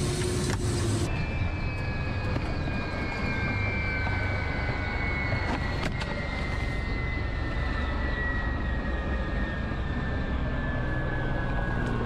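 Helicopter turbine engines and rotor running steadily nearby, a deep rumble under a whine that falls slowly and evenly in pitch from about a second in.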